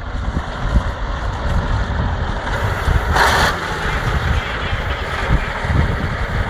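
Off-road vehicle engine running with a steady low rumble, and a short hiss about three seconds in.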